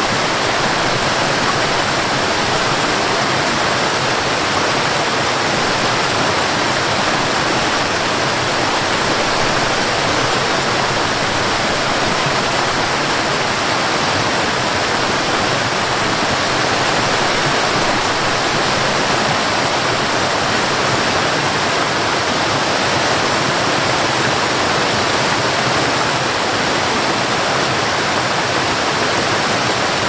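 Cascading waterfall splashing down over rock: a loud, steady, even rush of falling water.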